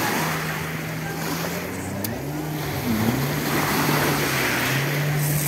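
Jet ski engine running offshore, its steady note dipping and rising about halfway through, over a wash of surf.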